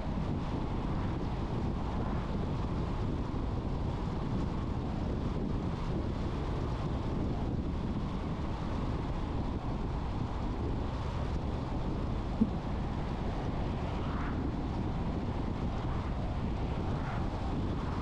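Steady road and wind noise from a car being driven, with wind buffeting the microphone. A single sharp click comes about twelve and a half seconds in.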